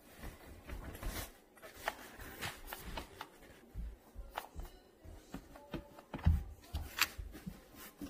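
Irregular small clicks and knocks of a hand pressing and handling the plastic seat-tilt button and joint on a Bugaboo Cameleon 3 stroller frame, the loudest knocks about six and seven seconds in.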